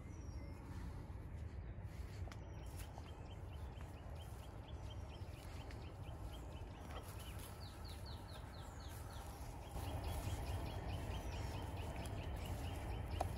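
Outdoor birdsong: rapid runs of short chirps and a few thin falling whistles, over a steady low rumble that grows louder near the end.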